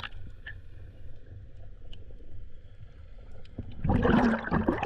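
Underwater sound through a camera housing: a steady low rumble of water with faint scattered clicks, then a loud bubbling gush near the end.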